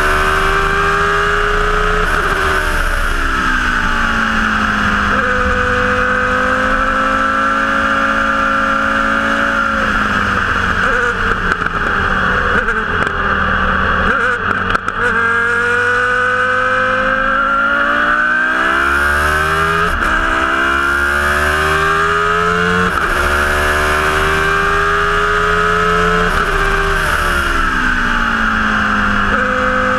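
Single-seater racing car's engine heard close from on board at full throttle, its pitch climbing through the revs and dropping sharply at each upshift, several times over. About halfway through the revs fall away as the car slows and turns through a corner, then climb again through the gears.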